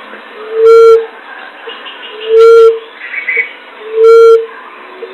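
Common emerald dove's low hooting call, a single soft hoot repeated three times at an even pace, played as a bird lure.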